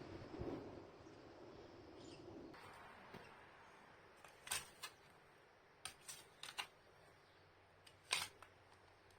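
A quiet stretch with a few sharp, short clicks, roughly seven of them, scattered through the second half, some in quick pairs; a faint low hum fades away in the first second.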